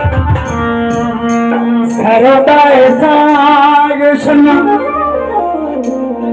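Singing with musical accompaniment, amplified through a microphone and loudspeaker: a man's voice holding long, wavering notes over steady sustained tones.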